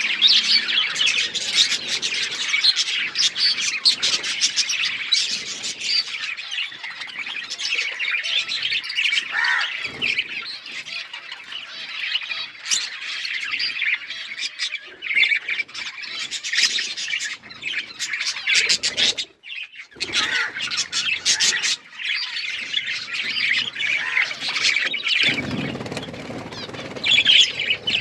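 A group of budgerigars chirping and chattering without a break, many quick overlapping squawks and tweets, with a brief lull about two-thirds of the way through. A low rumble comes in under the chatter near the end.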